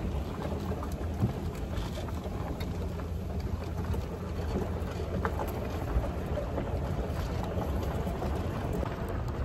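Open golf cart driving over a gravel track: a steady low rumble of wheels and wind buffeting the microphone, with a couple of short knocks from bumps.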